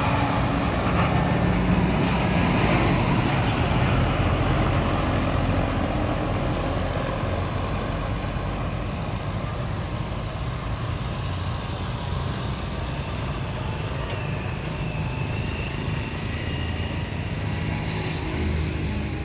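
Mercedes-Benz intercity coach driving past close by, engine running and tyres on the pavement. It is loudest in the first few seconds, then slowly fades as the coach moves away.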